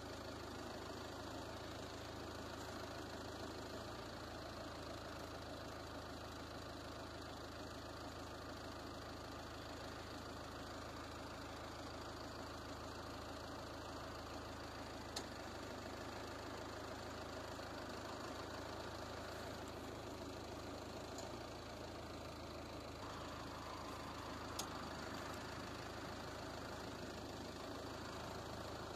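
A vehicle engine idling steadily, with two single faint clicks.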